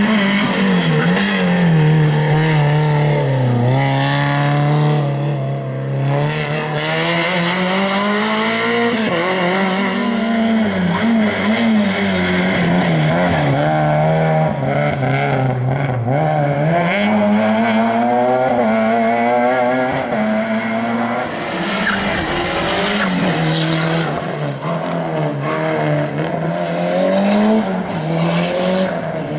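Rally car engines revving hard, the pitch climbing and dropping again and again as the cars brake and accelerate through tight chicanes. About two-thirds of the way through, tyres squeal briefly.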